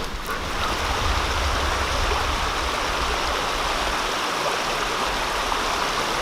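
Steady rushing of a creek cascading over a small waterfall, with a low rumble underneath that fades out about four seconds in.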